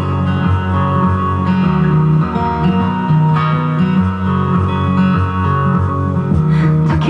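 Recorded music played through a Proton AM300 stereo amplifier and its speakers: an instrumental stretch with guitar over a moving bass line, no vocals.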